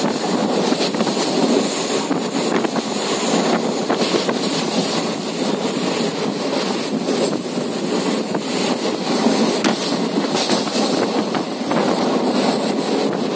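Passenger train running at speed, heard from a coach window: a steady rumble and rattle of the coach and wheels on the rails, with a few scattered clicks.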